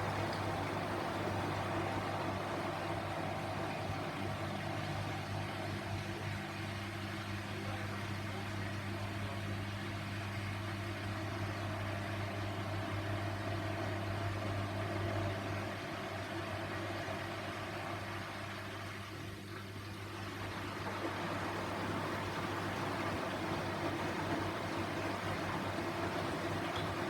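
Grundig washing machine running mid-cycle: a steady electric hum with a low drone, easing off for a few seconds past the middle and then coming back.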